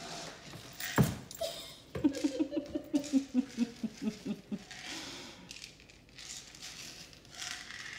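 A person laughing quietly in a run of short pulses for about two and a half seconds, with a single sharp knock shortly before it.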